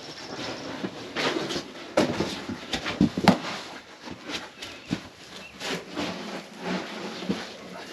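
Irregular knocks, clunks and rustling of hands-on work, with the loudest sharp knocks about two and three seconds in.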